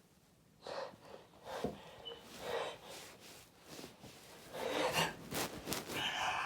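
A person's short, breathy sniffs and gasping in-breaths, coming closer together after about four and a half seconds: the build-up to a sneeze.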